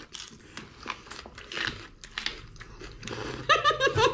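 Crisp, crunchy biting and chewing of raw red bell pepper flesh. A person's voice breaks in near the end.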